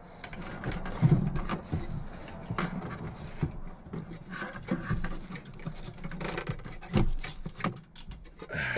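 Hand handling noise of a plastic fuel pump assembly and its wiring being manoeuvred inside a fuel tank's opening: irregular knocks, clicks and scraping of plastic, with louder bumps about a second in and near seven seconds.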